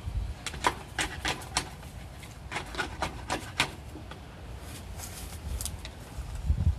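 Sewer inspection camera's push cable being worked in the pipe against a blockage: a string of irregular short scrapes and clicks, with a few dull knocks near the end.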